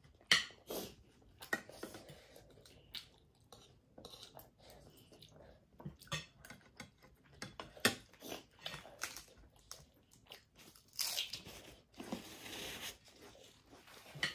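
Close-miked chewing and biting of seafood, with wet mouth sounds and frequent short clicks of forks and spoons against plates. Near the end there is a longer rustle, as a paper tissue is handled.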